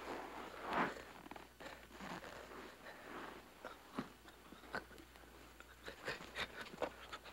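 Rustling and scuffling of people moving about, with clothing rustle and shuffling steps broken by irregular small clicks and knocks. The loudest rustle comes about a second in.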